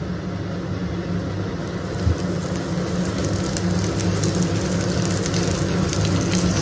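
Food sizzling in a pan: a crackling hiss over a steady low hum, growing a little louder about two seconds in.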